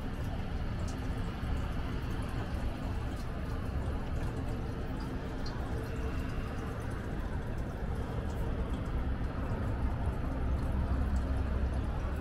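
Steady low rumble of outdoor city ambience, like distant traffic, with no distinct events.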